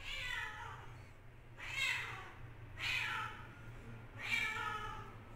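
An animal calling four times, each short call sliding down in pitch, about one a second.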